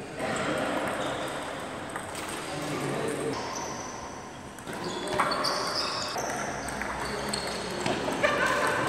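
Table tennis rally: the celluloid ball clicking off bats and the table at irregular intervals, over background voices.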